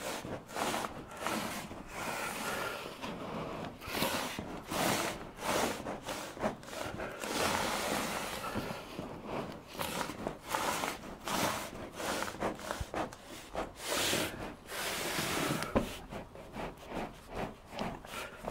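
PIR foam insulation board edged with foil-backed foam tape being pushed into a timber stud cavity: irregular rubbing and scraping of foam and foil against the wood, with short sharp scrapes and knocks throughout as the tape is squeezed to close the gap around the board's edges.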